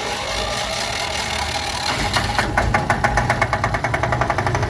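Diesel generator set in a soundproof enclosure being started with its button: the electric starter cranks with a rising whir, and about two seconds in the diesel engine catches and settles into a fast, even clatter.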